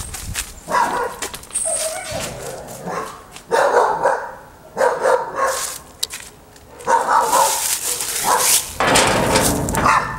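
A dog barking repeatedly, in short separate bursts.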